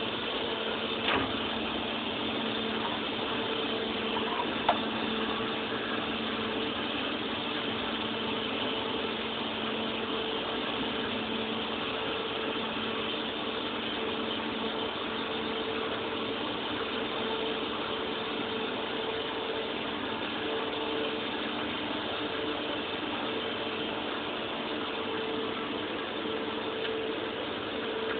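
Brother HS50A CNC wire EDM machine running with a steady hum and hiss, two even tones held throughout. Two sharp clicks sound in the first five seconds.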